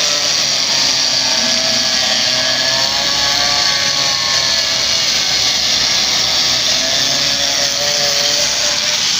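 Handheld power cutting tool running steadily under load with a wavering whine, cutting a piece out of the burnt part.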